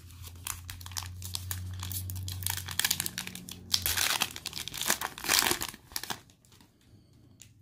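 Foil wrapper of a Panini Mosaic football card pack crinkled and torn open by hand, a dense crackling with the loudest rips near the middle, stopping well before the end.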